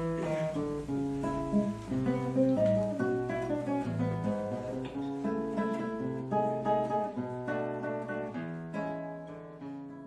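Acoustic guitar plucked in a run of separate notes over low bass notes, fading away near the end.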